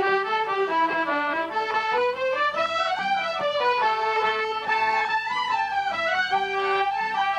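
Irish traditional tune played together by a group of fiddles, a whistle, a concertina and a button accordion: a steady run of quick notes moving up and down in unison.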